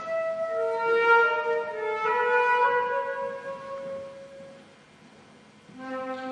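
Live instrumental music: a slow melody of long held notes on a melody instrument, each note changing about once a second. It fades almost away about four to five seconds in, then comes back with a lower note near the end.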